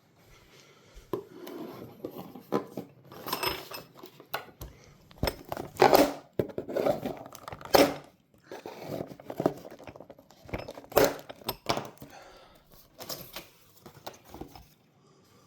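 Parts packaging being cut and torn open and unpacked, with irregular rustling and metal head bolts clinking against each other as they are handled.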